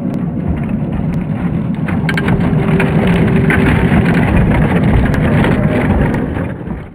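Tamiya Globe Liner 1/14 RC truck driving past, its tyres crunching over dirt and grit, with the rumble of its MFC-01 sound unit's simulated truck engine. It gets louder as the truck comes close, then cuts off suddenly at the end.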